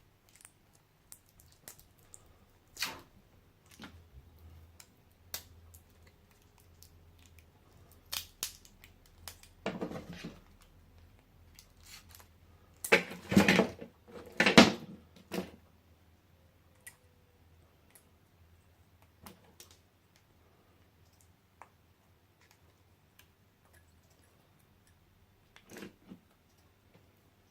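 Scattered clicks and light knocks from handling a laptop battery pack's plastic casing and its 18650 cells, with a louder cluster of knocks and scrapes about halfway through.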